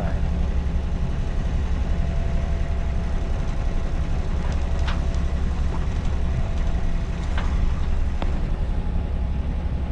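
Sailboat's engine running steadily in reverse, backing down on the anchor to set it.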